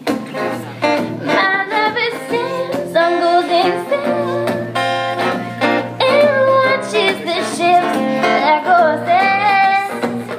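A high voice singing a song to acoustic guitar accompaniment, performed live.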